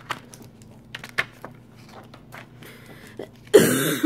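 Light clicks and rustles of paper sticker sheets being handled and tapped on a wooden tabletop, then a loud cough near the end.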